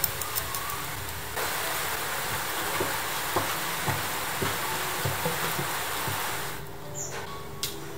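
Soft knocks and taps of baked cookies being picked up and handled on a silicone baking mat, under a steady hiss that starts about a second in and stops shortly before the end.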